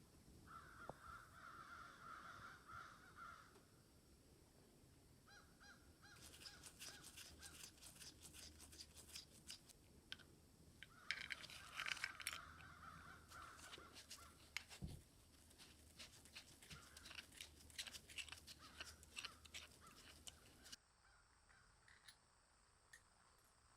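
Quiet restoration handwork: short rasping strokes a few seconds long, with dense small clicks and ticks through the middle, dying down near the end.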